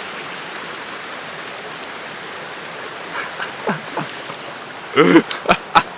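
Steady hiss of rushing water. Brief, short vocal sounds come in about three seconds in and again more loudly about five seconds in, followed by a couple of sharp knocks near the end.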